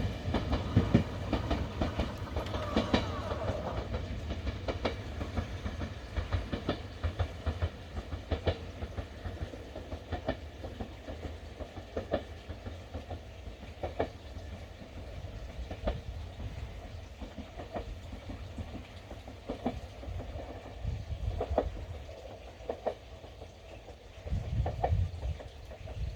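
Ueda Electric Railway Bessho Line 1000 series two-car electric train running away along the track, its wheels clicking over the rail joints every second or two over a low rumble, slowly fading.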